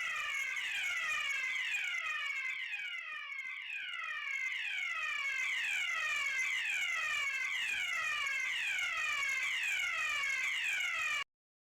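Electronic fire alarm sounder repeating a quick falling-pitch sweep over and over, about one and a half a second, cutting off suddenly near the end.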